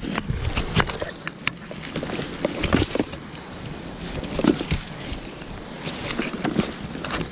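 Footsteps wading through a shallow creek: water sloshing and splashing with irregular steps, mixed with scattered sharp clicks and knocks.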